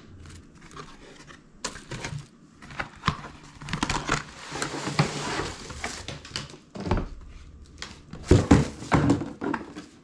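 Cardboard box and plastic packaging being handled: rustling and crinkling with scattered taps, a longer stretch of crinkling in the middle, and a few louder thumps near the end as the box is moved on the wooden table.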